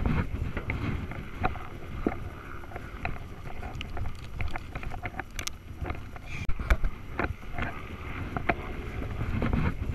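Skis sliding over packed snow at speed, with wind rushing across the action camera's microphone and scattered sharp clicks and knocks all the way through.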